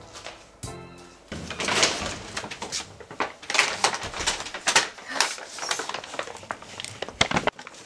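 Paper takeaway bags rustling and crinkling irregularly as they are carried and handled.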